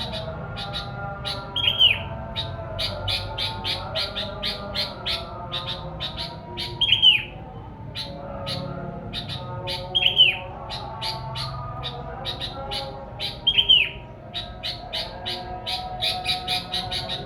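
Sooty-headed bulbul song played as a lure call. It is a steady run of short chirps, about three to four a second, and four times a louder falling call cuts through.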